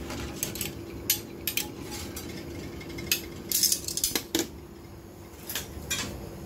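Stainless steel tongs clinking and scraping against a ceramic plate and the oven's wire rack as the plate is drawn out, a scatter of sharp clinks over a steady low hum.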